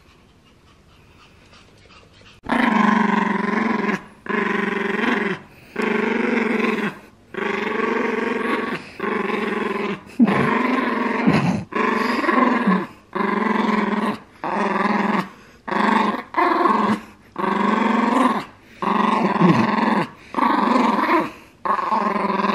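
Pomeranian growling close up, starting a couple of seconds in: about fifteen long growls of a second or so each, with short pauses for breath between.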